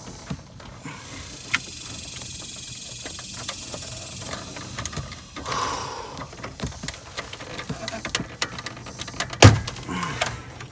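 Scattered clicks, knocks and rattles of a truck's dash radio and plastic trim being pried and pulled out, with one loud sharp knock near the end.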